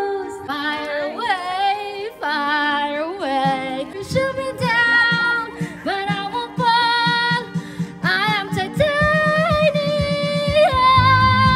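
A woman singing karaoke into a microphone over a backing track, her voice wavering on held notes; a steady low beat comes in about three and a half seconds in.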